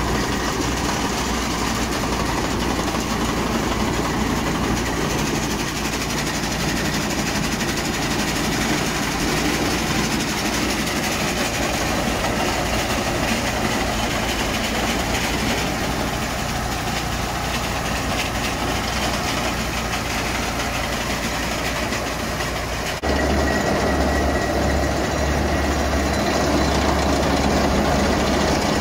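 BOMAG single-drum roller compactor's diesel engine running steadily, with a low hum under it. About two-thirds of the way through the sound changes abruptly and grows louder, with a stronger deep hum.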